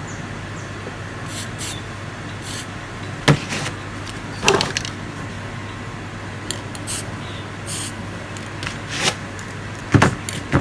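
Short hissing bursts of spray paint from an aerosol can, several brief sprays a second or more apart, with a few sharp knocks in between.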